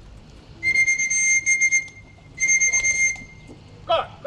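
Electronic beeping at one steady high pitch, in two stretches: about a second and a half, then a shorter one just under a second. Two short calls follow near the end.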